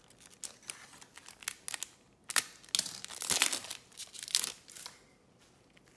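Foil trading-card pack wrapper crinkling and tearing open, with light rustling as the pack is pulled out; the ripping and crinkling is loudest from about two seconds in for a couple of seconds, then dies down to soft handling of the cards.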